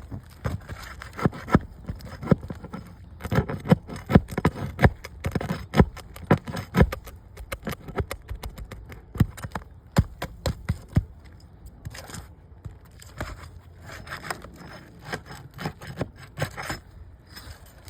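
Asphalt roof shingles being worked loose: irregular scraping and sharp knocks of a tool against brittle shingles and nails, coming in clusters with short pauses.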